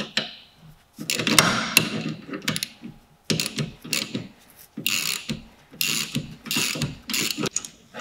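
Socket ratchet clicking through quick back-and-forth strokes in several bursts with short pauses, undoing a 13 mm rear brake caliper bolt while a spanner holds the guide pin from turning.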